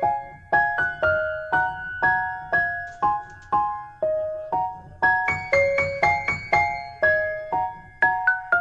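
Soft background music: a gentle piano melody of struck notes that ring and fade, a few notes to a beat.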